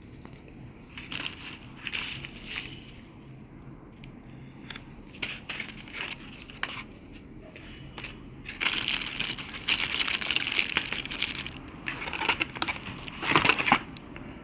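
Packaging being handled and crinkled, with scattered clicks and knocks, then two louder stretches of rustling: one about nine seconds in and another near the end.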